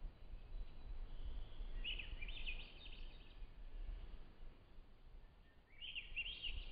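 Small birds singing: a quick run of chirping notes about two seconds in and another near the end, over a steady low rumble.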